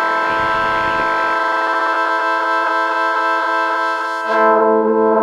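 Arturia MicroFreak synthesizer's wavetable oscillator holding a chord while its LFO sweeps the oscillator shape. The LFO rate is turned down from a fast, rough audio-rate buzz to a slow wobble of about four a second. Near the end a lower note joins and the top end goes duller.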